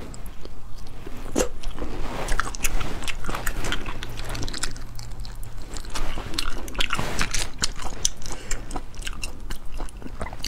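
Eating spicy sea snails out of their shells: sucking and chewing, with many irregular sharp clicks.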